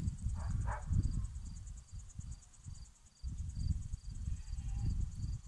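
Crickets chirping in a steady, even rhythm. Under them is a low, uneven rumble on the microphone, the loudest sound, and two brief calls come about half a second in.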